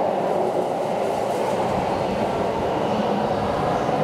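Keikyu New 1000 series electric train pulling out of the platform, cars running past with a steady rumble of wheels on rail.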